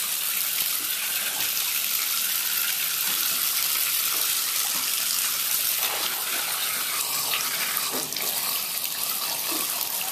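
Bathtub tap running steadily, water splashing into the tub.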